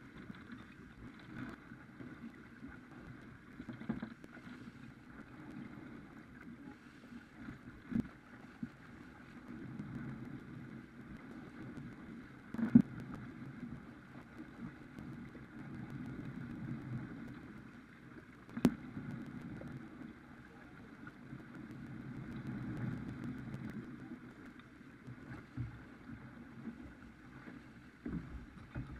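Farr 280 sportsboat under sail: water rushing along the hull and wind on the microphone, with a few sharp knocks, the loudest about halfway through and again a little later.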